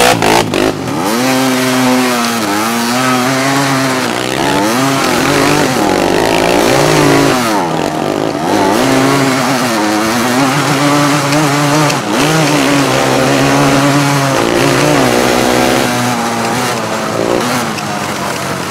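Four-wheeler (ATV) engine running hard, its revs rising and falling again and again as the throttle is worked.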